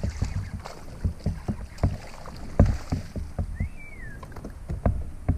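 A hooked bass splashing and thrashing at the water's surface as it is reeled up to a kayak, with irregular knocks and thumps against the kayak. A single short whistled chirp sounds a little past halfway.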